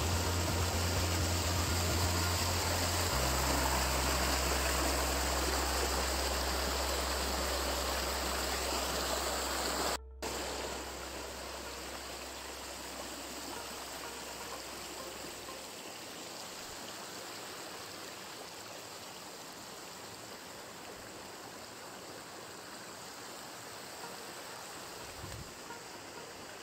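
Rushing water of a forest stream or waterfall, a steady hiss. It breaks off for an instant about ten seconds in, then carries on quieter. A low steady hum lies beneath it until a little past halfway.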